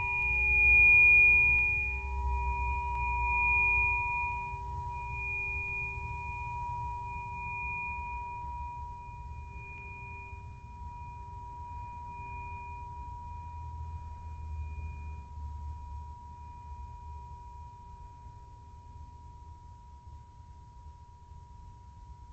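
Sound-healing tuning forks ringing together as several steady pure tones at different pitches, slowly fading. The highest tone dies away about two-thirds of the way through while a middle tone rings on, over a faint low rumble.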